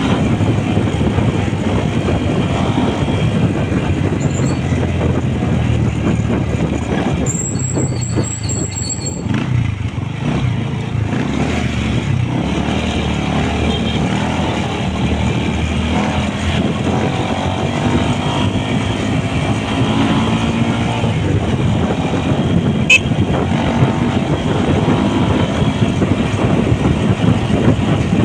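A road vehicle running steadily while travelling, with road and wind noise. A steady high-pitched tone sounds for about two seconds, about seven seconds in.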